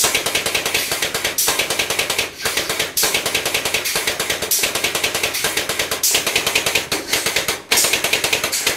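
AutoTORQ hydraulic chain pipe wrench working the pipe: fast, steady clicking rattle from its ratcheting mechanism, in runs broken by short breaks every second or so.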